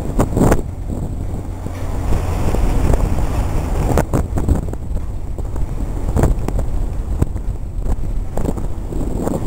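Low, steady rumble of a passenger ferry under way, with wind buffeting the microphone in gusts.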